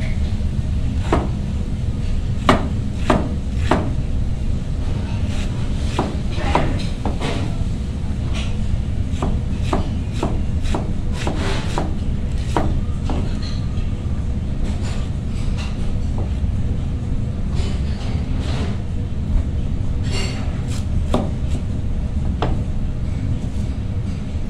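Kitchen knife chopping cabbage on a cutting board: irregular knocks of the blade, frequent through the first half and sparser later, over a steady low hum.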